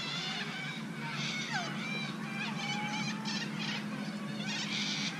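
A chorus of birds calling, with many quick chirps and rapid trills and a few whistled notes that slide in pitch.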